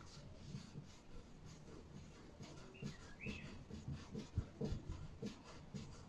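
Faint handling noises as a rope is wound around a washing machine motor's shaft: soft scattered taps and low knocks, with a short high chirp about three seconds in.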